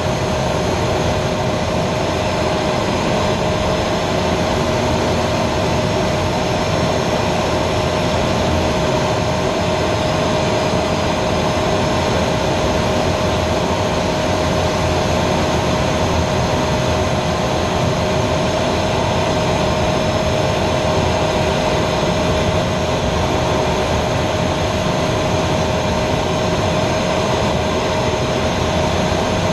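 Aero L-29 Delfin jet trainer's Motorlet M-701 turbojet running steadily in flight, heard inside the cockpit as a loud, even noise with a constant whine.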